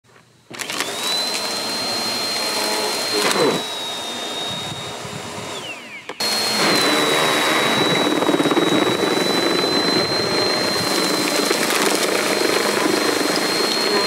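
Bissell PowerForce Helix upright vacuum switching on with a rising whine, then running with a steady high whine. There is a brief rush about three seconds in and the pitch sags near six seconds, then it comes back louder as it works over paper towels.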